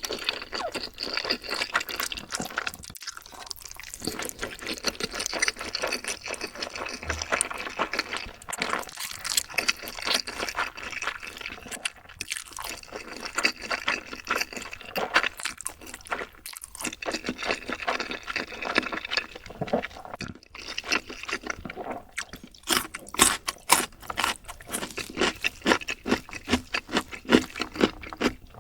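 Close-miked eating sounds: wet, sticky chewing and slurping of sauce-coated noodles and chicken, a dense run of crackly mouth clicks that grows loudest in the last few seconds.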